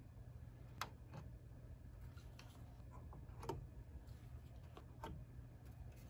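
Faint clicks and light knocks as plug-in circuit boards are pulled from their edge connectors and set down on a wooden tabletop, a few separate clicks over a low steady hum.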